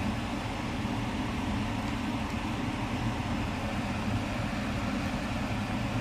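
Pot of mung bean soup boiling on the stove: a steady low rumble with a hiss over it.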